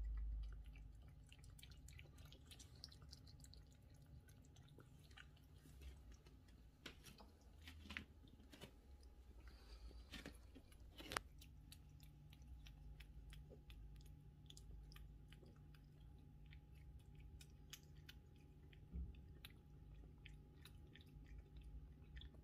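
British Shorthair cats chewing and crunching food from a plate, a run of small clicks with one sharper click about eleven seconds in.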